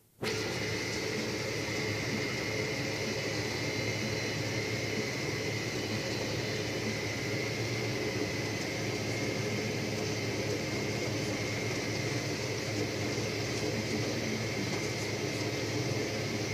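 Tractor engine running steadily under load while pulling a land-levelling scraper through soil, heard from inside the cab, with a steady high whine over the drone.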